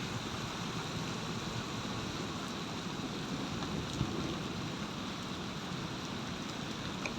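Heavy rain pouring down in a steady, even hiss, with a faint low thud about four seconds in.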